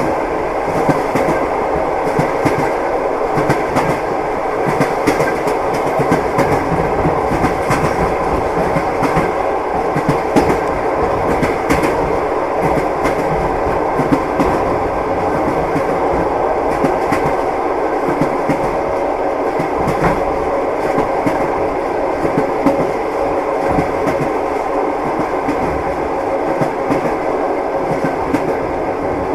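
Train wheels clattering over the rails: a steady rumble with frequent short clicks of the wheels on the rail joints.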